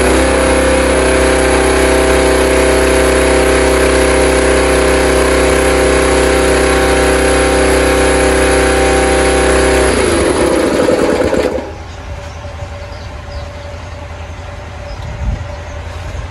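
Small single-cylinder petrol engine of a Shark air compressor running steadily at high throttle, then winding down and cutting out about eleven seconds in.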